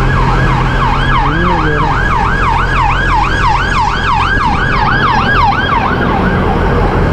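Emergency vehicle siren in a fast yelp, rising and falling about three times a second, fading out near the end, over the steady hum of city traffic.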